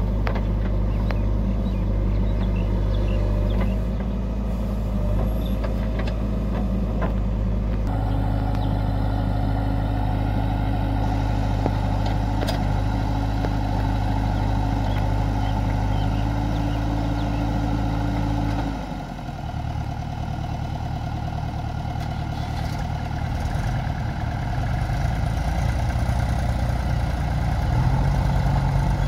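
Diesel engine of a JCB 3DX Xpert backhoe loader running steadily under load as it digs and dumps soil into a trolley, with a tractor engine running alongside. The engine note changes abruptly about eight seconds in and drops somewhat in level a little past halfway.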